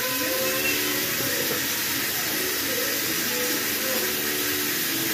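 A steady hiss, even throughout, with faint short tones underneath.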